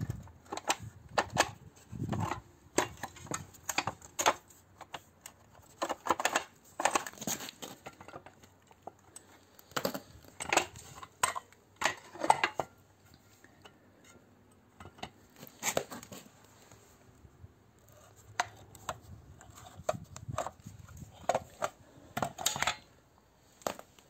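Irregular metallic clinks, clatter and knocks as old washing-machine hand wringers, painted metal frames with rubber rollers, are picked up, turned over and set down on a hard floor. The knocks come in clusters with short quiet gaps between them.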